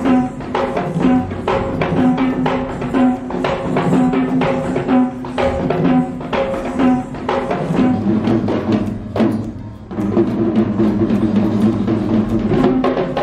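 Kandyan barrel drums (geta bera) played live in a fast, dense rhythm for a traditional dance, with a steady pitched tone held underneath. The drumming dips briefly about two-thirds of the way through, then carries on.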